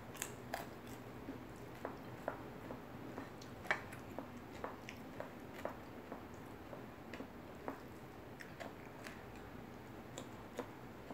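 Soft mouth sounds of eating fried salted fish and stir-fried bamboo shoots by hand: quiet chewing with scattered wet clicks and smacks at irregular intervals, about one or two a second, the loudest a little under four seconds in.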